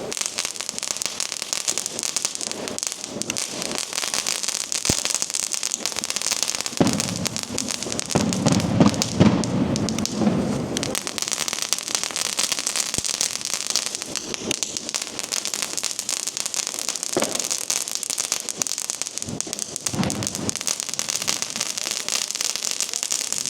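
Nico Angry Rabbits 32-shot crackling firework battery firing, with dense, continuous crackling throughout and heavier pops and rumble about a third of the way in.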